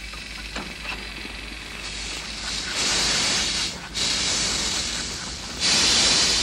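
Steam locomotive venting steam: a loud hiss that builds and comes in surges, strongest about three seconds in and again near the end, with a short break in between.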